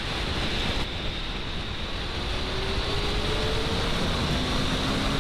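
Steady rushing of wind buffeting the microphone on a Honda CBR600F motorcycle at highway speed, with a faint engine note rising slightly in pitch beneath it.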